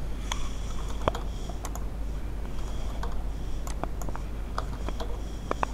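Computer keyboard keys tapped one at a time, about a dozen scattered clicks with uneven gaps, over a steady low hum.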